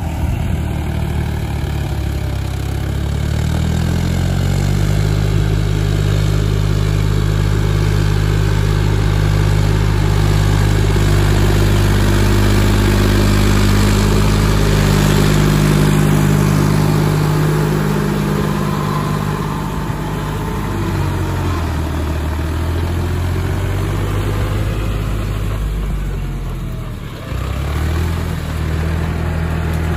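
Farmtrac 6050C 4WD tractor's diesel engine running under load as it works through deep mud with a rotavator. The engine speeds up a few seconds in, holds steady, eases off about two-thirds of the way through, dips sharply near the end and picks up again.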